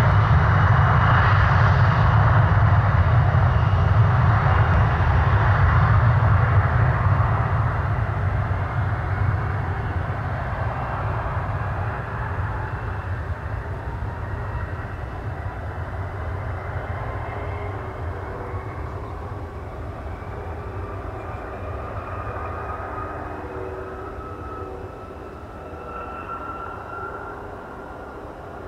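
Embraer ERJ-145 regional jet's twin rear-mounted Rolls-Royce AE 3007 turbofans at takeoff power: a loud low rumble that fades steadily as the jet moves away, with a thin whine rising in pitch near the end.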